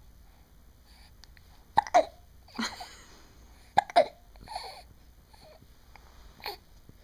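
A pet dog or cat hiccuping: two loud sharp hiccups about two seconds apart, each a click followed by a short burst, with a few fainter hiccup-like sounds in between and near the end.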